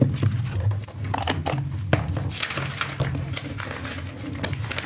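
Office noises: a string of sharp clicks and knocks with a stretch of rustling about two seconds in, over a low steady machine hum.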